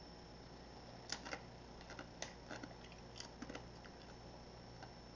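Faint crunching of a tortilla chip with dip being bitten and chewed: a scatter of small crisp cracks over a few seconds.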